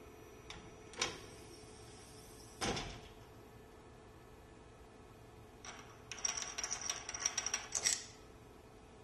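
Mechanical clicks and clunks from a pneumatically actuated fixture being operated: light clicks around half a second and a second in, and a heavier clunk near three seconds. About six seconds in comes roughly two seconds of rapid clattering with a high hiss over it.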